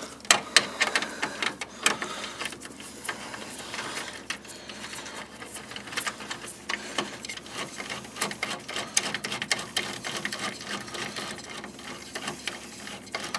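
Hand ratchet clicking in rapid runs as it backs out a 10 mm cooling fan mounting bolt.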